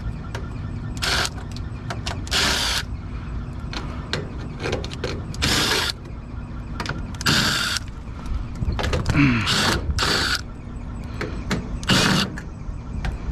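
Milwaukee impact driver running in about six short bursts, backing sheet-metal screws out of a rooftop unit's access panel.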